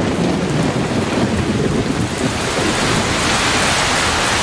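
Heavy tropical rain pouring down, with a low rumble of thunder in the first half; the hiss of the rain grows heavier toward the end.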